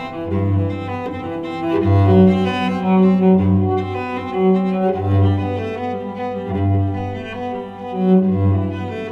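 An LG G8/V50 phone alarm tone: an instrumental melody of held notes over a low bass note that repeats about every second and a half.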